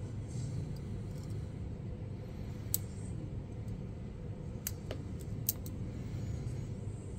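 Lock pick and tension wrench working the pins of an old brass Taylor padlock: a few sharp metallic clicks, one a little under three seconds in and a cluster around five seconds, over a steady low hum.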